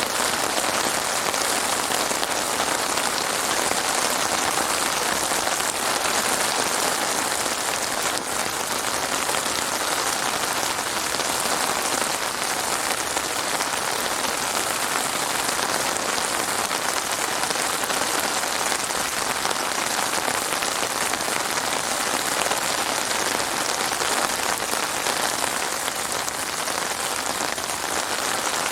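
Heavy rain falling steadily, a dense even hiss of drops striking a surface.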